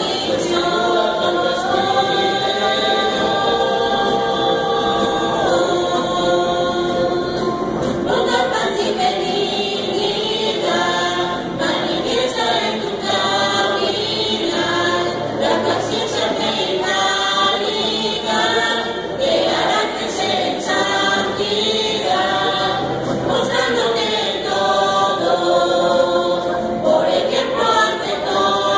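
Mixed youth choir singing a hymn in several voices, accompanied by strummed acoustic guitars.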